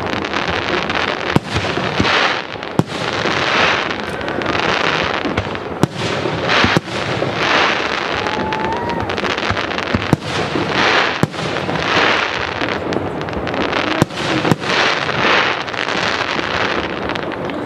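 Aerial firework shells bursting in a display: sharp bangs at irregular intervals, a second or more apart, with stretches of hissing noise between them. The bangs thin out near the end.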